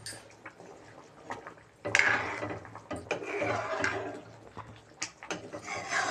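A metal ladle stirs thin, simmering curry in a metal kadhai, with scraping and clinking of metal on the pan and the gravy sloshing. The strokes are loudest about two seconds in and again near the end.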